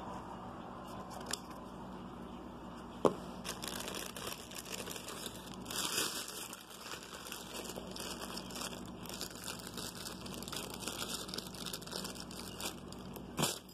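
Plastic packaging crinkling and rustling as it is handled and unwrapped, in quick irregular crackles, with a sharp tap about three seconds in.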